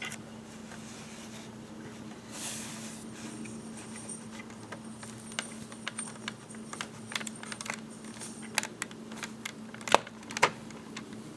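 LEGO bricks and plates being handled and pulled apart: a soft rustle, then a string of sharp plastic clicks and clatters through the second half, the loudest near the end, over a faint steady hum.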